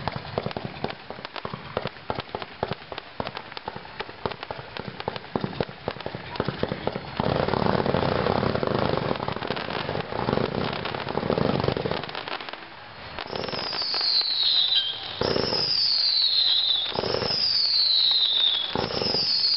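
Winda 'Amazing Ballet' 220-shot fireworks cake firing in rapid succession. Quick cracking shots give way to a heavier, louder barrage about seven seconds in. Near the end come four falling whistles, about two seconds apart, each with a bang.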